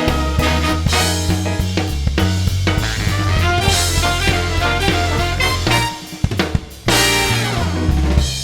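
Background swing-style jazz music with drum kit and horns. About six seconds in the band drops out briefly to a few drum hits, then comes back in full.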